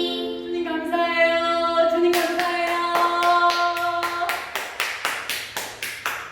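The close of a Korean children's praise song: voices hold long sung notes, and from about two seconds in a steady clapping beat joins, about three to four claps a second, before the song stops suddenly.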